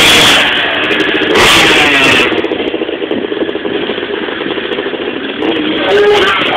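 Dirt bike engine running and revving close by, its pitch rising near the end, with a short burst of rushing noise about a second and a half in.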